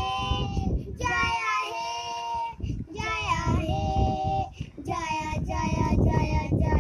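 A young girl singing, in phrases of a couple of seconds with short breaks between them.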